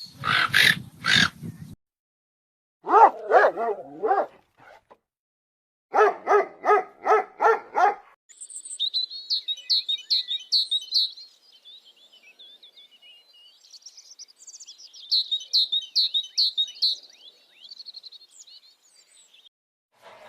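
A dog barking: a short burst of barks, then a quick run of about six barks. This is followed by a small bird's rapid, high-pitched chirping in two long runs.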